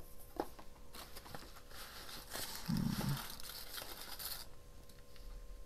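Paper and plastic crafting bits rustling and crinkling while being rummaged through, with scattered small clicks and a brief low sound about three seconds in.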